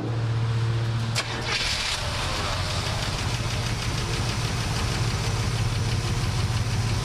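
1967 Buick GS 340's 340 V8 being started: a click, then it catches about a second and a half in and runs with a fast ticking. It has a lifter tap that is almost gone on the fresh oil.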